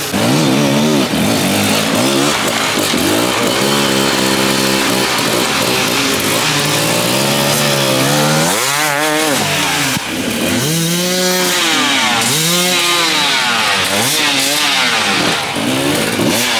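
Enduro dirt bike engines revving hard and dropping back again and again as the riders claw up a steep slope, with several sharp rises and falls in the second half.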